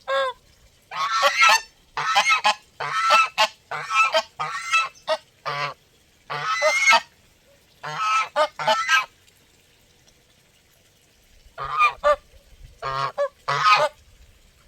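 Geese honking: runs of loud, repeated calls, broken by a pause of about two seconds past the middle before the honking resumes.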